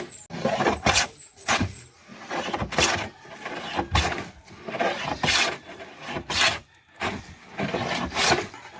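Vintage hand wood plane shaving a board in repeated rasping strokes, about one a second.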